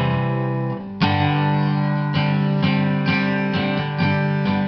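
Background music: guitar playing, a chord struck about a second in, then notes picked about twice a second.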